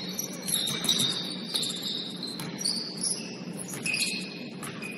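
Basketball shoes squeaking on a gym floor: many short, high squeaks at shifting pitches, mixed with sharp taps and ball bounces.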